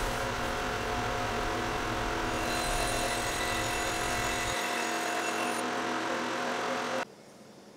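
Band saw running steadily with a faint whine. The low hum drops away a little past halfway, and the whole sound cuts off suddenly near the end.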